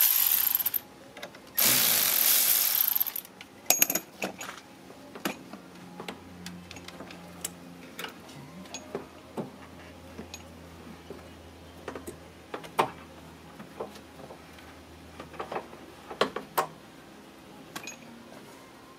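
A ratchet wrench spun in two quick runs at the start, loosening the battery terminal, followed by scattered clicks and clinks of tools and metal parts being handled.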